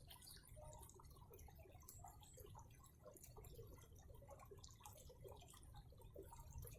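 Near silence: faint ambience with scattered soft ticks over a low steady rumble.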